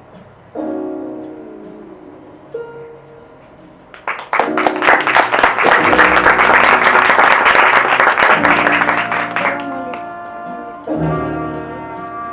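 Stage music with long held notes, over which a burst of audience applause swells up about four seconds in, lasts some six seconds and dies back under the music.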